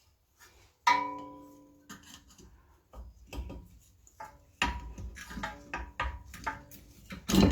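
Metal brake pads and tools clinking and knocking as they are handled: a ringing metallic clink about a second in, then a run of knocks and taps, the loudest just before the end.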